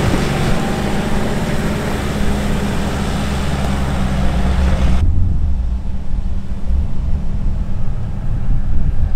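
Nissan Navara ute driving up a loose gravel track and away, its engine and tyres on the stones heard over a steady low rumble. About five seconds in, the higher sounds cut out abruptly and only the low rumble is left.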